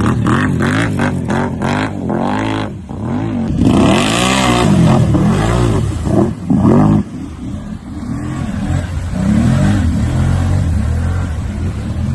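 A vehicle engine revving up and down repeatedly under hard driving, with louder rushing noise about four seconds in and again near seven seconds.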